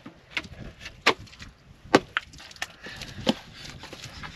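A spade being driven into firm, cracked mud: about half a dozen sharp, irregular knocks, the loudest about two seconds in.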